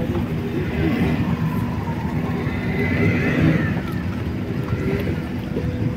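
Motorboat engine running steadily under way, a continuous low drone with the rush of water.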